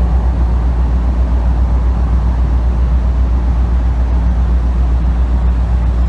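Steady deep rumble of a car ferry underway: engine and hull noise, loud and even throughout.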